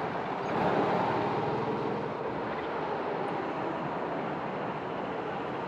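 Go-kart engine running steadily, swelling briefly in level a little under a second in.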